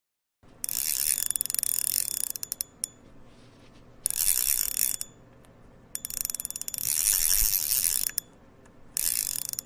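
Fishing reel's drag clicking rapidly as line is pulled off, in four runs of one to two seconds each with short pauses between.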